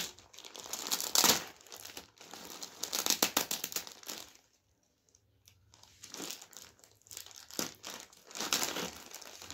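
Plastic courier mailer bag crinkling and tearing as hands pull it open, in irregular bursts with a pause of a second or so about halfway through.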